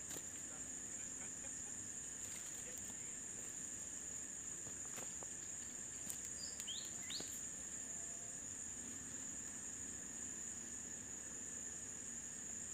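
Steady high-pitched drone of insects, a chorus of crickets, with a fainter lower drone beneath it. A few light clicks and two short rising chirps come about halfway through.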